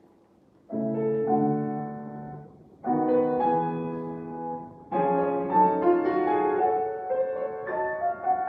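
Classical piano music. After a short silence, sustained chords are struck about every two seconds, each fading away, and from about five seconds in the notes move faster in a melody over the chords.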